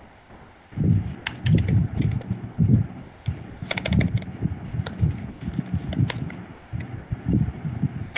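Typing on a computer keyboard: an irregular run of key clicks and taps, entering values into a spreadsheet formula.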